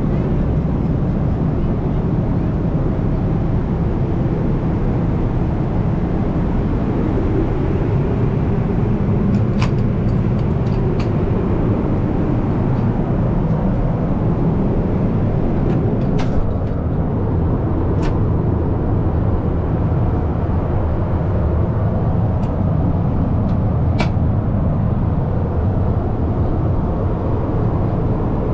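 Steady rumble of airliner cabin noise inside a Boeing 777-200ER, from its engines and the air rushing past, with a few faint clicks.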